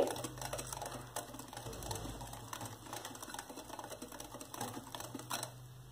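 Hand wire whisk stirring thick cake batter in a glass bowl, its wires ticking lightly and irregularly against the glass, over a low steady hum.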